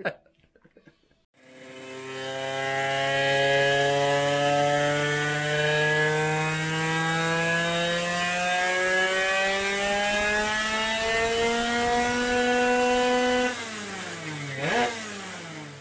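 Bidalot WR 50 cc two-stroke racing engine making a full-throttle power run on a roller dyno: its note climbs steadily in pitch for about twelve seconds, then the throttle shuts and the revs fall away, with one short blip of the throttle near the end.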